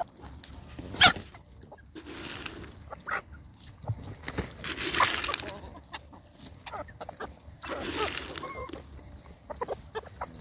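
Domestic chickens clucking while a mixed flock feeds on grass, with one brief, loud, sharp call about a second in.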